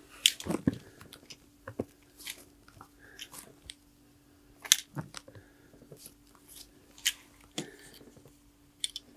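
Gloved hands handling an airsoft hand grenade and its string tripwire: scattered clicks, taps and rustles of fabric gloves against the grenade's metal fuse and plastic body, with a few sharper clicks. A faint steady hum runs underneath.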